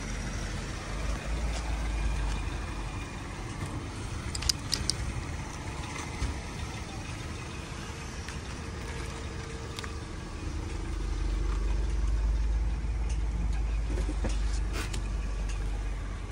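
Mazda sedan idling, a steady low rumble that swells about a second in and again from about ten seconds on. A few light clicks come in the middle and near the end.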